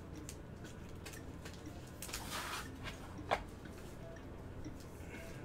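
Handling of a trading card and plastic card holders: a brief soft rustle about two seconds in, then a single sharp click a moment later, over a steady low hum.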